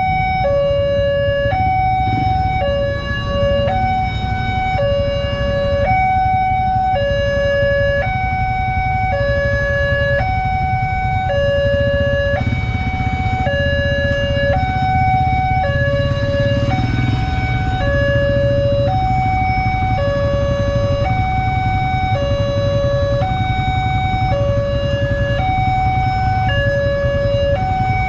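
Railway level-crossing warning alarm sounding a steady high-low two-tone chime, each tone about a second long and repeating without a break. It is the signal that a train is approaching and the barriers are closed. Underneath is the rumble of idling cars and motorcycles.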